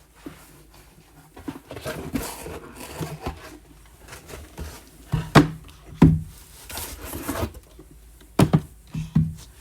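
Handling noise at a tabletop: a few sharp knocks as card boxes are set down or shifted on a table, with soft rustling and crinkling of packaging between them.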